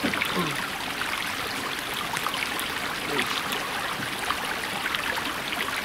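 Steady rushing of a nearby stream, with a few faint short falling sounds about three seconds in.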